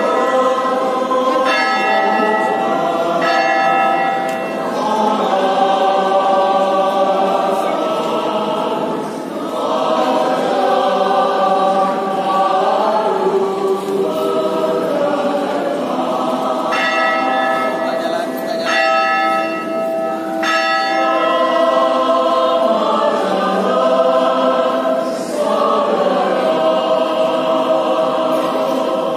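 Many voices singing a slow hymn together, with a bell ringing out over the singing: two strikes near the start and three more a little past the middle.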